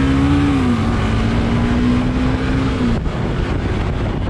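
Motorcycle riding along, with wind rushing over the microphone and a steady engine tone that dips in pitch about half a second in, holds, then drops away about three seconds in.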